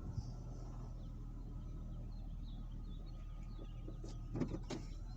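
Low, steady rumble of a parked car's engine idling, with faint bird chirps and a quick run of clicks and knocks about four seconds in.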